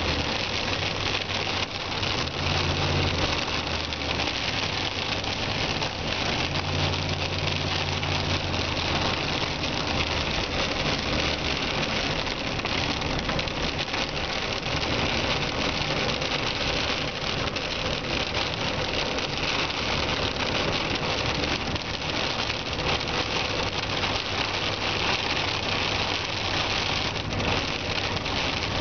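Rain with a little hail pelting the car's roof and windshield in a steady dense patter while driving through a thunderstorm, with the car's engine and road noise humming low underneath.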